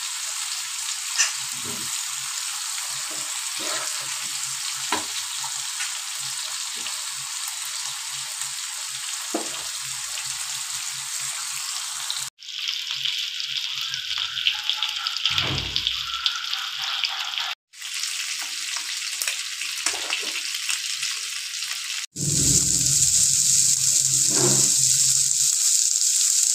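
Masala-coated fish pieces sizzling in hot oil on an iron tawa, a steady hiss, with a steel spatula scraping and tapping against the pan now and then during the first half. The sound cuts out for an instant three times and is loudest in the last few seconds.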